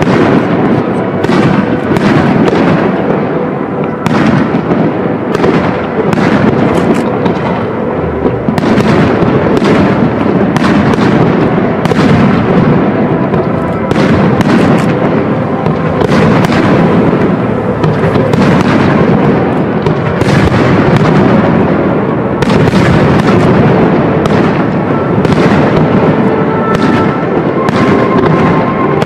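Aerial firework shells launching and bursting in a continuous barrage, one sharp bang after another with no pause.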